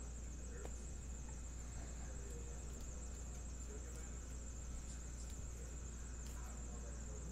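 A steady high-pitched electronic whine over a low mains hum, with faint soft clicks of baseball cards being handled and flipped through.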